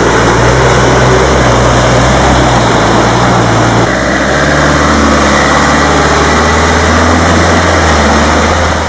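Land Rover off-roaders' engines running steadily under load through deep mud. The low engine note shifts to a different pitch about four seconds in.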